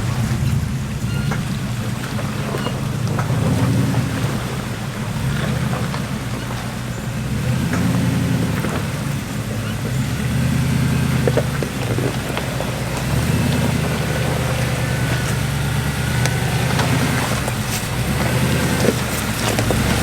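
Four-wheel-drive vehicle's engine working at low revs through rough terrain, its note rising and falling as the throttle is fed in and eased off, with occasional knocks.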